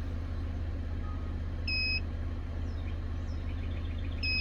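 Two short high electronic beeps, about two and a half seconds apart, over a steady low hum.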